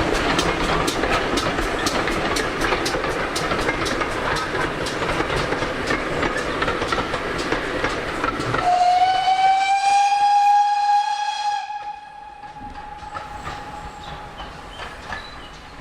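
GWR 57xx pannier tank steam locomotive and its train running, with a regular clicking over the rail joints. About eight and a half seconds in, the running noise drops away and the engine's steam whistle gives one long note, rising slightly at first, then fading.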